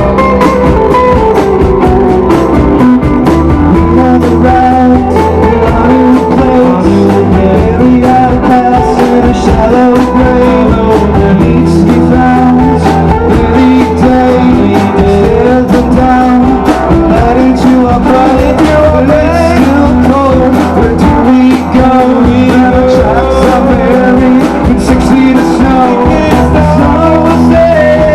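Live rock band playing a song loudly: guitars and drums with a singer's voice.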